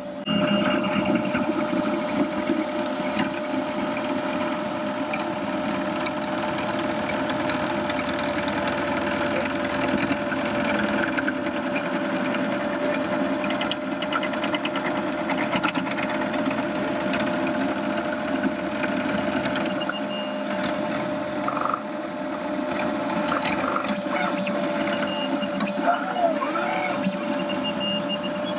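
Robo R1+ 3D printer at work printing in red ABS: the stepper motors whir as the print head travels, over a steady whine.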